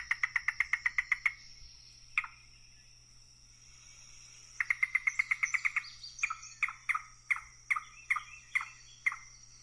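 Yellow-billed cuckoo calling: a rapid, even run of hard knocking notes, then a lone note. Then a second fast run that slows into separate, spaced-out notes near the end.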